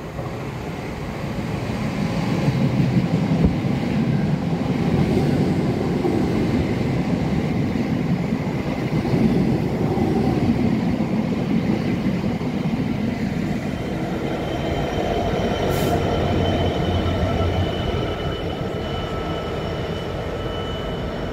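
Two Class 455 electric multiple units pass close by, their wheels rumbling heavily on the rails, loudest in the first half. The rumble then eases, and a Class 66 diesel locomotive's two-stroke EMD engine drones as it approaches, with steady high whining tones and one sharp click near the end.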